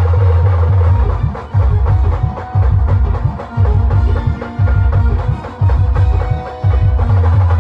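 Indian brass band playing: held brass-horn tones over a heavy, pounding drum beat, with the low end surging about once a second.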